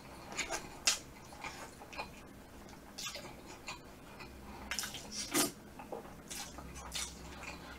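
A metal spoon clinking and scraping in a stainless steel tray as it scoops up saucy braised chicken, in a handful of short, separate strokes, with chewing between them.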